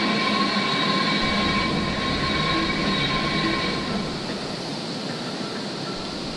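Steady industrial machinery running, a continuous mechanical noise with a steady high whine over a low hum. It eases off slightly about two-thirds of the way through.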